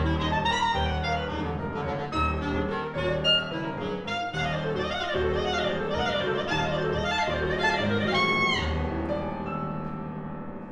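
Clarinet and piano playing a hard-rock-inspired rhapsody, the clarinet running over repeated pounding low chords in the piano. About eight and a half seconds in, the clarinet makes a falling glide, and the music then grows softer.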